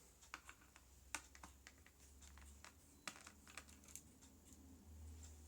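Faint, irregular small clicks and taps of a screwdriver and small screws being handled against a laptop's plastic base, a few a second at most.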